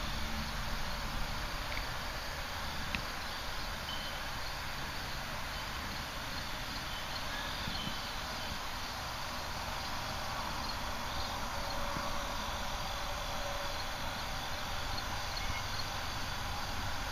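Steady outdoor background noise with a low rumble, and faint, short, high chirps of insects now and then.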